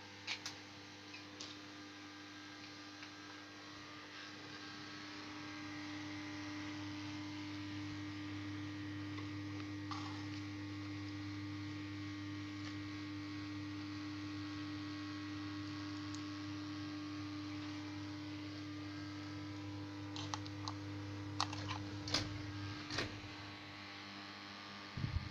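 Niga mini ceiling fan's 20-watt motor running with a steady electrical hum. A few sharp clicks come near the end, and the hum stops.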